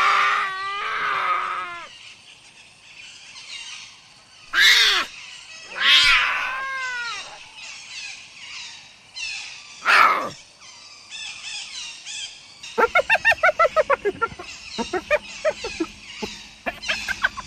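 A string of animal calls: several separate drawn-out pitched cries, some bending up or down in pitch, followed by a quick run of short, rapidly repeated calls.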